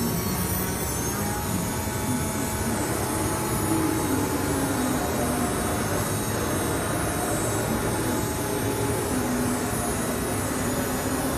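CNC wood router running and carving, a steady high spindle whine over continuous cutting noise.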